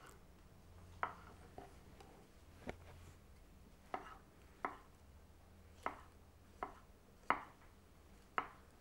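Kitchen knife slicing brown mushrooms on a wooden chopping board: about nine sharp knocks of the blade meeting the board, at an uneven pace of roughly one a second.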